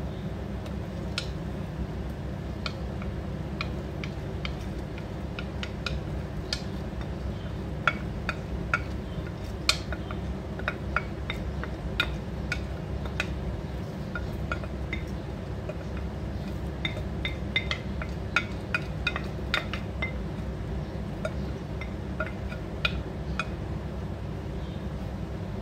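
Irregular small clinks and taps of a wooden spoon against a glass bowl as wet rice is scraped and tipped into a pot of broth, over a steady low rumble.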